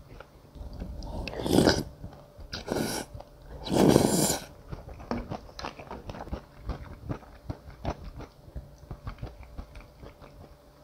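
Close-miked chewing of crispy fried pork (tangsuyuk): three loud short noisy bursts in the first half, then a steady run of small wet mouth clicks.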